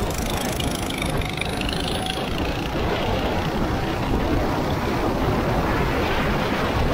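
Go-kart engine running at speed under heavy rushing noise, likely wind on the microphone. A faint engine whine wavers up and down in pitch over the first couple of seconds.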